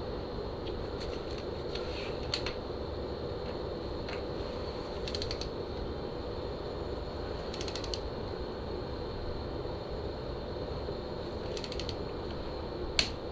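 Ratchet wrench clicking in short bursts of rapid clicks as the fork pinch bolts are run in and torqued, over a steady background hum, with a sharper click near the end.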